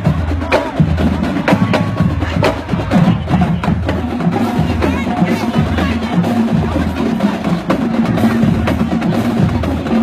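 Marching band drumline playing a street cadence while marching: a steady bass drum pulse with snare drums and sharp clicks.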